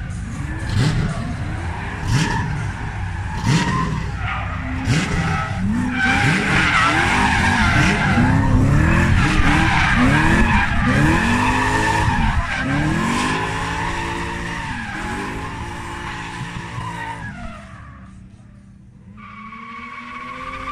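Drift car engine revving hard up and down over and over as the car slides, with tyres squealing through the middle. The sound fades away after about 17 seconds, then another engine comes up near the end.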